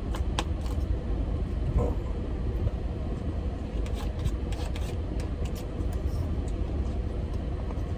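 Eating sounds: scattered small clicks and smacks of chewing over a steady low rumble.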